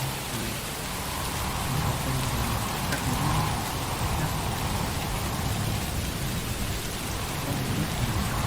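Recorded ambient rain sound, a steady hiss of rainfall, with low thunder rumbling underneath, played back as a relaxation sound track.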